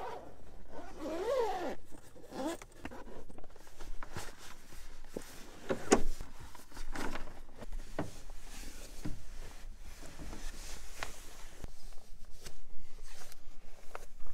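Zipper on a fabric mattress cover being pulled open, followed by rustling and scattered knocks as a foam tri-fold mattress is pulled out and unfolded, with one sharp knock about six seconds in.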